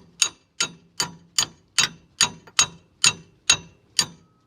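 A steel hand tool working on a truck's shock-absorber bolt: a steady run of about a dozen sharp metallic clicks, about two and a half a second, each with a short ring.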